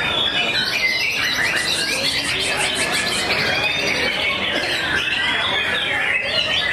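Several caged white-rumped shamas (murai batu) singing at once, a dense tangle of whistles and warbles. A fast, high trill runs from about a second and a half to three seconds in.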